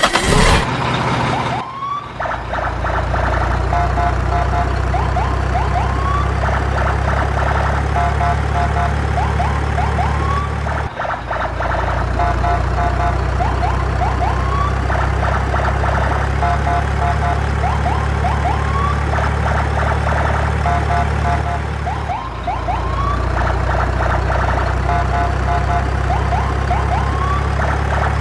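Siren-like electronic sound with short rising whoops and beeping tones over a steady low drone, the pattern repeating about every 11 seconds.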